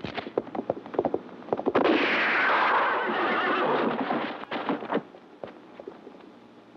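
Western film sound effects: a gunshot and a quick run of hoofbeats, then a horse crashing down and sliding through the dirt in a long, loud, noisy rush that fades out a little past halfway.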